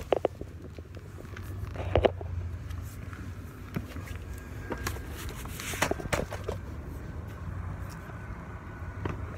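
Handling noise from a jostled handheld phone as a baby is lifted out of a car seat and carried: rustling, irregular clicks and knocks, with a louder thump about two seconds in and a cluster of clicks around five to six seconds. A steady low rumble sits underneath.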